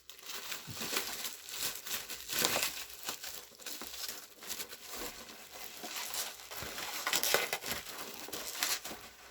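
Packaging crinkling and rustling in irregular bursts as a parcel is handled and opened by hand.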